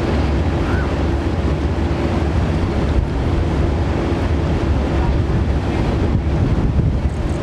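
Steady drone of a passenger ferry's engines under way, with wind rumbling on the microphone and water rushing past the hull.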